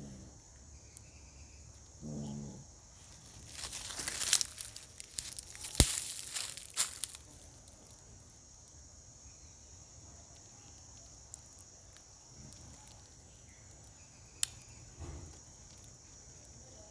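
A cat handling its fresh prey in dry leaf litter. A short low growl comes about 2 s in, then a few seconds of rustling and crackling of dry leaves with a couple of sharp snaps. Insects chirr steadily throughout.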